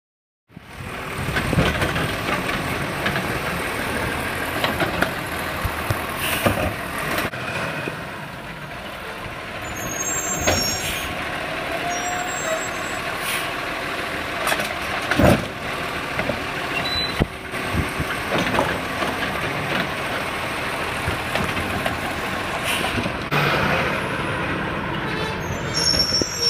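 Heil Python automated side-loader garbage truck on a Peterbilt 320 chassis, its engine and hydraulics running steadily while the arm sets a cart back on the curb and retracts, with several sharp knocks, the loudest about halfway. Near the end the truck pulls away.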